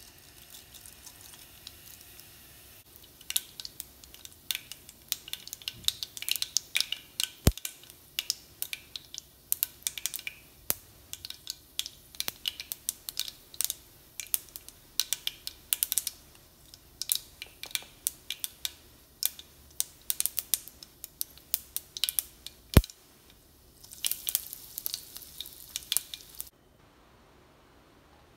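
Mustard, carom and cumin seeds popping and crackling in hot oil as they temper: a quick, irregular scatter of sharp pops with two louder cracks. The popping stops a couple of seconds before the end.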